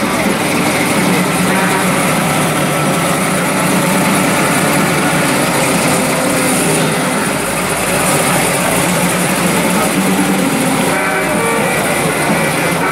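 A second-generation Chevrolet Camaro's engine running steadily and loudly as the car rolls slowly and turns at low speed.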